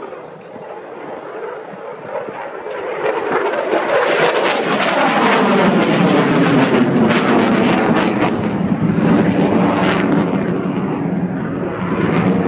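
RAF Eurofighter Typhoon jet flying past, its twin EJ200 turbofan engines growing loud about three seconds in, with a downward sweep in pitch as it passes. The noise eases a little, then swells again near the end.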